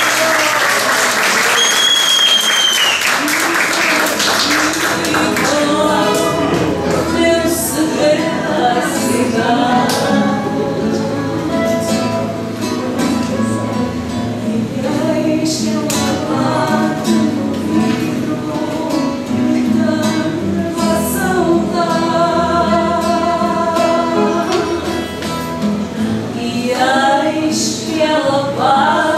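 Women singing fado to guitar accompaniment, with clapping and high whoops over the opening few seconds.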